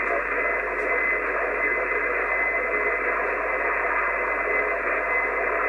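Icom IC-751 HF receiver passing a steady hiss of band noise on an open single-sideband channel with nobody transmitting. A thin, high, steady whistle runs through the hiss.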